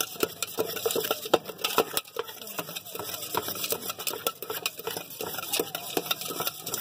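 Wedges of green guava being tossed and stirred with spice masala inside a metal tumbler, the pieces knocking and slapping against its sides in a quick, irregular clatter.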